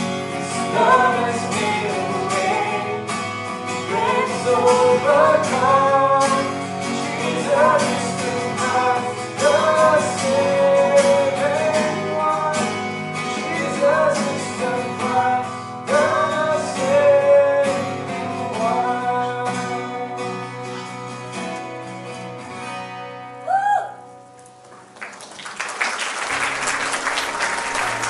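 A man and a woman singing live to two strummed acoustic guitars. The singing stops about two-thirds of the way through while the guitars play on. The song ends and audience applause starts near the end.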